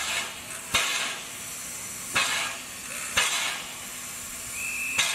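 Narrow-gauge steam locomotive pulling away slowly: four sharp exhaust chuffs spaced a second or more apart over hissing steam. A steady steam-whistle blast starts near the end.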